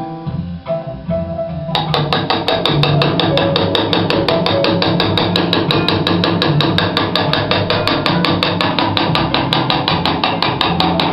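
A small engraver's hammer tapping the end of a hand-held chisel to cut an engraving into a machete blade: fast, even strikes, several a second, starting a little under two seconds in.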